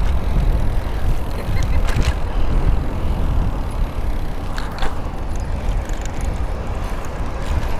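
Wind and road noise while riding a bicycle in city traffic: a steady low rush with a couple of short clicks, about two seconds in and again near five seconds.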